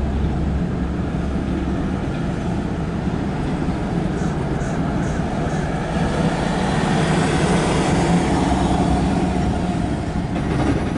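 Empty autorack freight cars rolling past on steel wheels: a steady rumble and rail noise that swells past the middle and eases off near the end.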